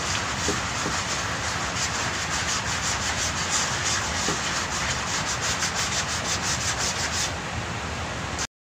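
Sandpaper on a hand sanding block rasping over body filler on a pickup's steel front fender, in quick, even back-and-forth strokes. The sound drops out for a moment near the end.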